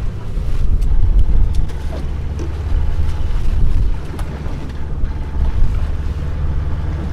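Wind buffeting the microphone on an open fishing boat, over a steady low drone from the boat's engine.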